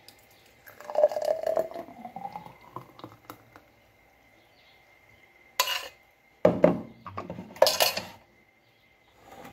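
Thick green smoothie pouring from a stainless steel mixer-grinder jar into a tall glass, the pitch rising as the glass fills. Then three sharp knocks as the steel jar is handled and set down, the loudest about six and a half seconds in.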